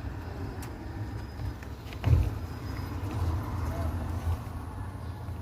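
Car engine running at idle, a steady low rumble, with a single thump about two seconds in.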